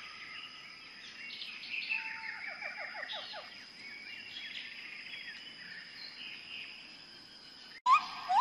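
Wild birds chirping and calling over a steady high insect drone, with a quick run of falling whistled notes about two seconds in. Near the end, after an abrupt break, a much louder rising bird call.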